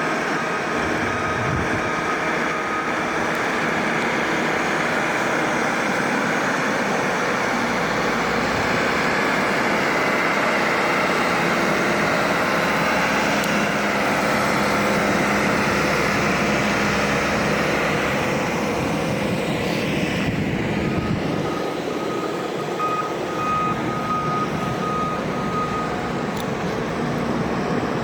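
A passing freight train rumbling steadily, with an intermittent high beeping at the start and again in the last third.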